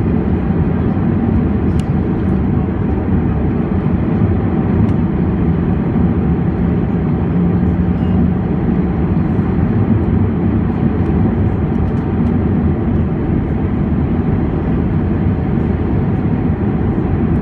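Steady low rumble of an Airbus A319's cabin noise, engine and airflow sound, even and unchanging, with a faint steady hum in it.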